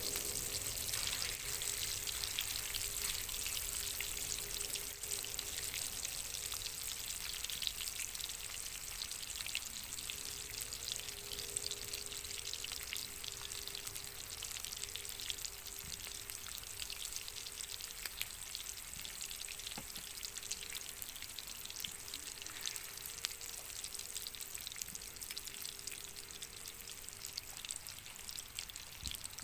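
Wagyu steak sizzling in a hot pan: a dense, steady crackle of spitting fat that slowly grows quieter.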